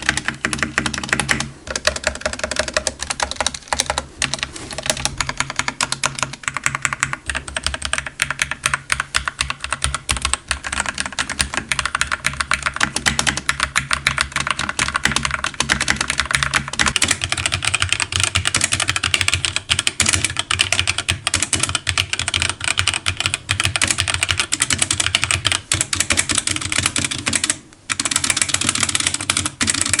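Fast typing on a Dark Project KD87A mechanical TKL keyboard with factory-lubed Gateron Cap Teal switches: a dense, continuous clatter of keystrokes with a brief pause near the end.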